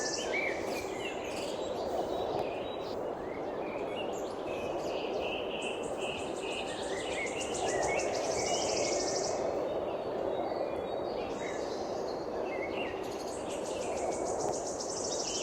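Wild birds chirping in short, high notes over a steady background noise. A high, rapidly pulsing buzzy trill comes in about five seconds in for around four seconds, and again near the end.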